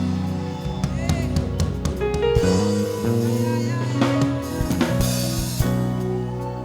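Band music with a drum kit playing over held chords and a steady bass line.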